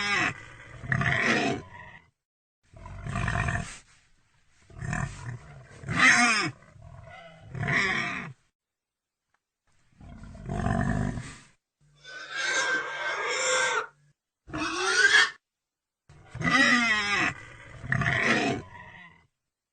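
Pigs squealing: about ten loud calls, each a second or two long, separated by abrupt silent gaps.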